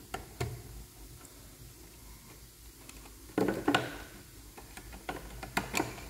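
Small clicks and ticks of a screwdriver working a terminal screw on a relay socket and of wires being handled inside a plastic control box, with a louder cluster of clicks about three and a half seconds in and another near the end.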